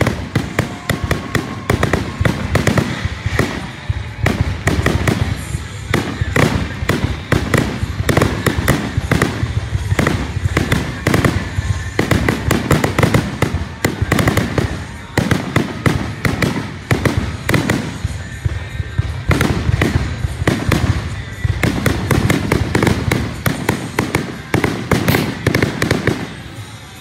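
Aerial fireworks shells launching and bursting overhead in rapid, overlapping bangs, several a second, easing off just before the end.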